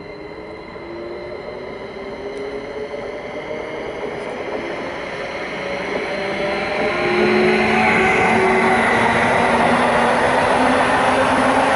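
Meridian Stadler FLIRT 3 electric multiple unit running into the station and past along the platform, growing louder until it is alongside about seven seconds in. A steady whine rides over the noise of the wheels on the rails.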